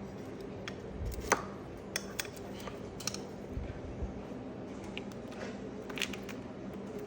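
A few light clicks and knocks, the sharpest about a second in, over a steady low hum.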